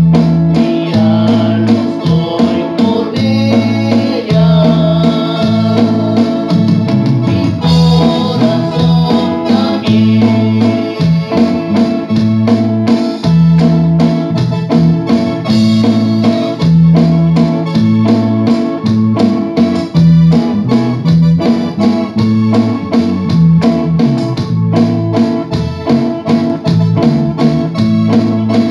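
Small live band playing: keyboard with an organ sound over a moving electric bass line and a steady drum beat, loud and unbroken.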